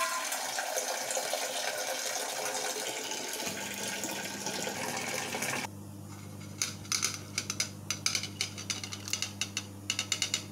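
Tap water running into a steel saucepan, cutting off about five and a half seconds in. After that a steady low hum remains, with a quick run of light clicks and scrapes as chopped vegetables are tipped from a steel plate into the pan.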